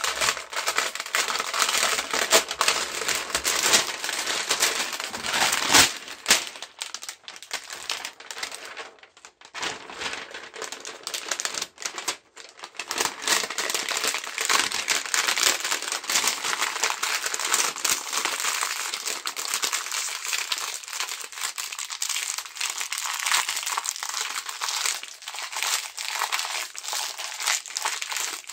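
Clear plastic keyboard membrane sheets being crumpled and squeezed into a ball by gloved hands: a continuous crinkling crackle, with brief lulls about nine and twelve seconds in.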